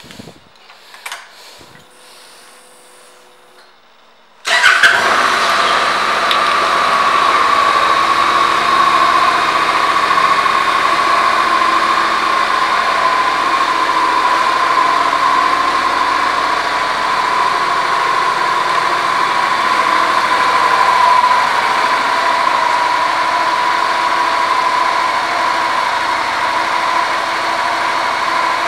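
A 2015 Honda CTX700 DCT's parallel-twin engine being started: a few light switch clicks, then about four and a half seconds in it fires and settles into a steady idle, its pitch easing down slightly as it settles.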